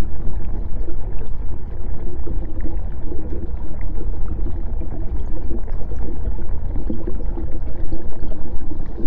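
Underwater deep-dive ambience: a steady, dense low rumble with faint scattered ticks above it.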